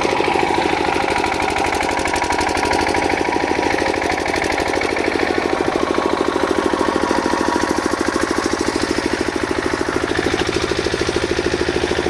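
A machine running steadily with a rapid, even pulsing rattle.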